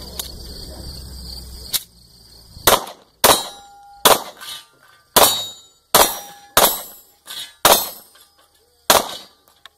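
A string of about ten pistol shots fired in quick succession over some seven seconds, starting about two seconds in, with steel popper targets clanging and ringing after some of the hits.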